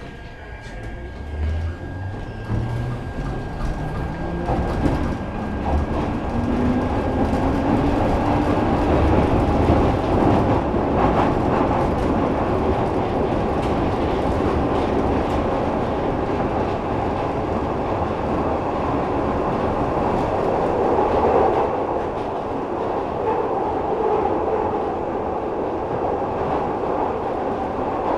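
Glasgow Subway train pulling away and accelerating, its motor whine rising steadily in pitch over the first several seconds, then running at speed through the tunnel with a steady rumble and wheel clatter.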